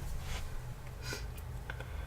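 A person with a feverish cold breathing faintly: two short breaths about a second apart, with a few small clicks near the end.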